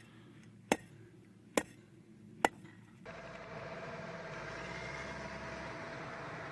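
Three single gunshots, sharp and short, a little under a second apart, over a quiet background. About three seconds in, the steady running of a Stryker armoured vehicle's diesel engine takes over, with a constant faint whine.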